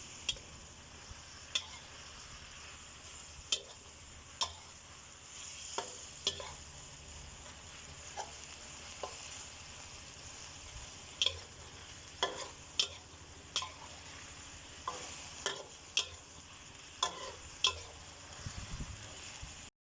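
Chicken and eggplant with red curry paste sizzling while being stir-fried in a pan, with a steady hiss. Irregular clicks and scrapes of the spatula against the pan come more often in the second half.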